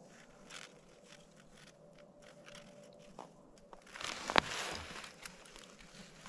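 Faint small ticks of 20-gauge brass snare wire being handled and twisted. About four seconds in comes a stretch of crunching in the snow with one sharp click, the loudest sound.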